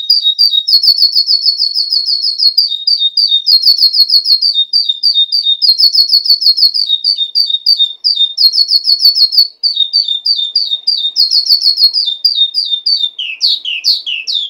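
Eurasian skylark singing a long, unbroken song of fast repeated chirping notes and trills, shifting from one phrase to the next every second or two, with slurred downward notes near the end.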